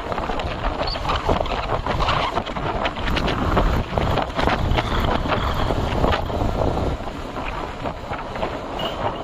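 Wind buffeting the microphone on a moving motorcycle, a loud, rough, steady rush with the vehicle's running noise underneath.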